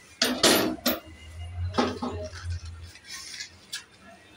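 Aluminium pressure cooker being set down on a steel gas stove: a loud scrape and knock of metal on the pan support just after the start, then a few sharp clinks.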